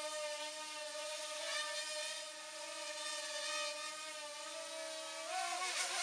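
Parrot Rolling Spider minidrone in flight: its four small propellers and electric motors whine steadily. About five seconds in, the pitch dips and swings back up as the drone manoeuvres.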